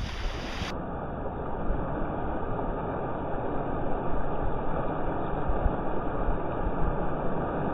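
Steady wind noise on the microphone over the wash of small surf, an even rushing sound with no distinct splashes or tones standing out.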